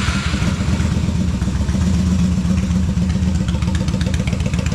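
Yamaha Virago 250's V-twin engine running just after starting, in an even, pulsing beat that grows a little stronger about two seconds in. Its cam-chain timing has just been corrected, so both cylinders fire in step and it now has the V-twin sound instead of a single-cylinder one.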